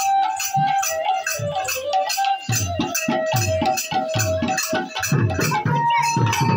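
Live folk ensemble: a sanai (shawm) plays a held, wavering melody over a double-headed barrel drum and quick metallic jingle strokes at about four a second. The drum strokes grow heavier about halfway through.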